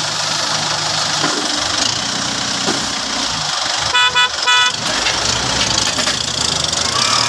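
Vehicle engine running steadily, with two short horn toots about four seconds in.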